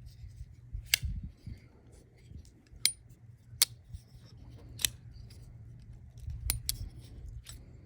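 Civivi Sentinel Strike button-lock knife being flicked open and shut, the blade snapping into place with sharp metallic clicks, about seven of them at irregular intervals.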